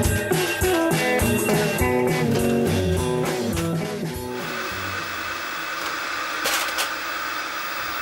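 Guitar music plays, then stops about halfway through and gives way to the steady hiss of a CRT television's static, with a few sharp clicks.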